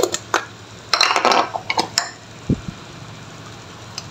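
A metal spoon and seasoning jars being handled: a few sharp clicks, then a burst of clinking clatter about a second in, and a single dull knock after it.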